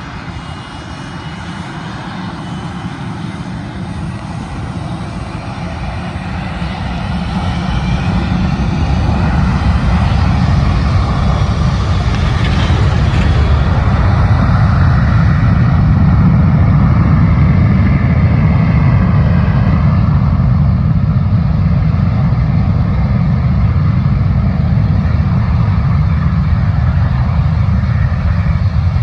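MD-87 air tanker's twin rear-mounted turbofan jet engines running on the runway, a low roar with a whine that glides in pitch, growing louder from about a quarter of the way in and then holding steady.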